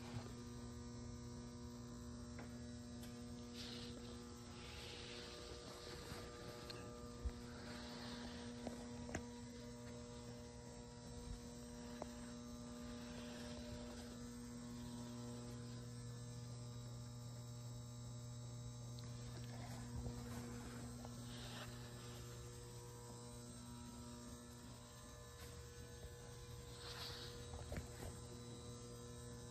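Steady low electrical hum, several pitches held together, with a few faint brushing sounds and small clicks.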